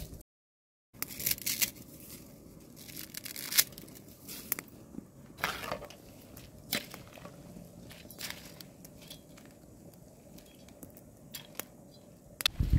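Metal ladle stirring rice and vermicelli noodles in a pot of boiling water, with scattered sharp clinks and scrapes against the pot.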